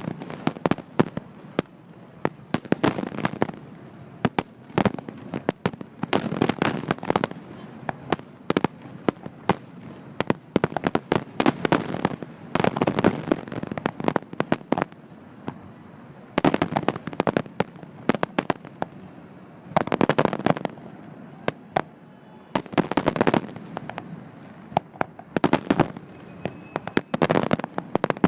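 Fireworks going off in repeated volleys of sharp bangs and crackles, a fresh cluster every two to four seconds.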